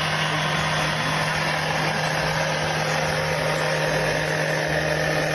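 An engine running steadily, a constant low hum under a dense, even noise.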